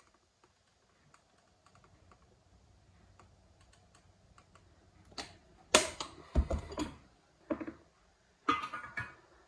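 Faint clicks from a silicone gun as a bead of silicone is run around a chrome basin waste fitting. About five seconds in, these give way to a series of loud knocks and clunks as the waste and the ceramic basin are handled.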